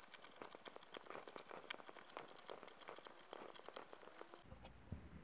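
Scissors snipping through non-woven fabric, a quick, faint run of small snips and rustles as a circle is cut out.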